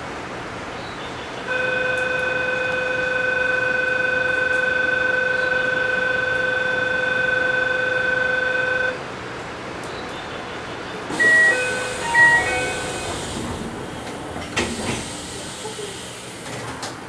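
A commuter train stands at a station stop. An electronic warning tone sounds steadily for about seven seconds. A few seconds later comes a short chime of several notes at falling and rising pitches, with a hiss of air, followed by a couple of knocks, as the doors work before departure.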